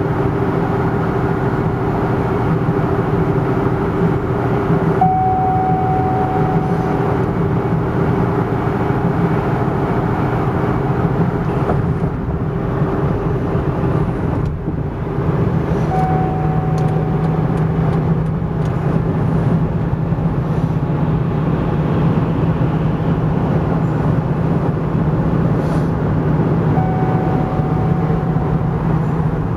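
A car engine running steadily with an even hum, and a short high tone sounding three times, about eleven seconds apart.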